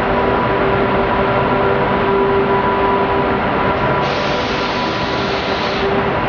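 Renfe class 269 electric locomotive hauling passenger coaches, rolling slowly into a station: a steady rumble with a steady hum over it.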